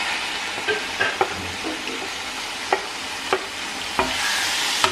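Onions and freshly added chopped tomatoes sizzling in a hot kadai while a wooden spatula stirs them, knocking sharply against the pan about five times. The sizzle grows brighter near the end.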